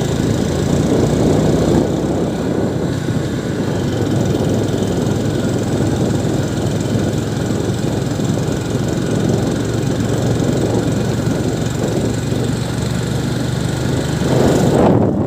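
A vehicle's engine running steadily, with a low hum under a constant rush of noise.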